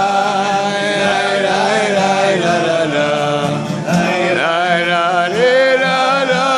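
A group of men singing together in unison, with acoustic guitars playing along.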